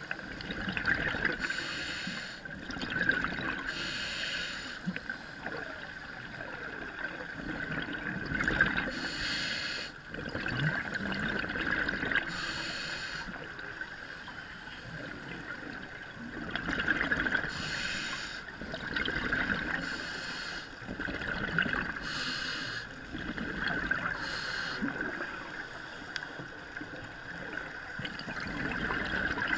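Scuba regulator breathing heard underwater: a hissing burst of exhaled bubbles about every two to five seconds, over a steady high-pitched hum.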